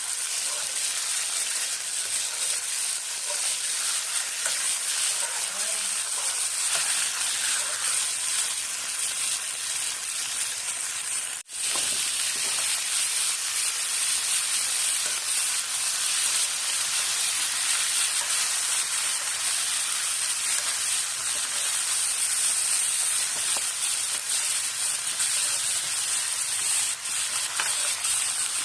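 Food sizzling as it fries in a pan: a steady hiss, with a brief break about eleven seconds in.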